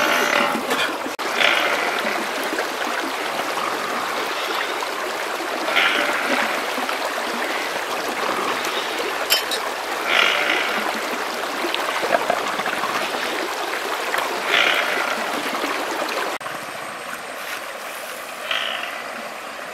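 Flowing river water running steadily, with a short splash about every four to five seconds. The water sound drops in level about three-quarters of the way through.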